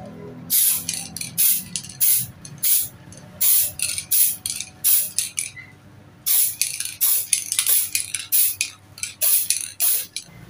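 Pylox aerosol spray paint can being sprayed onto a sewing machine's body in many short bursts, a sharp hiss each time, a few a second. It pauses briefly twice.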